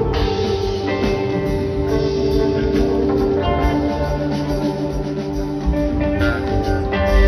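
Jam band playing live through a concert PA, an instrumental passage of electric guitar over drums, heard from the crowd. A heavy low bass note swells in right at the end.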